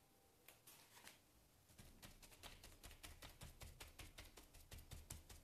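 Sponge loaded with paint dabbed quickly onto paper on a tabletop to blend the colours: faint soft taps, a couple at first, then from about two seconds in a steady run of about five a second.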